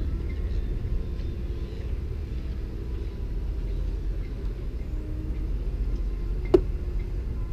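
Steady low outdoor rumble, with one sharp click about six and a half seconds in as a part of the winch being stripped is handled.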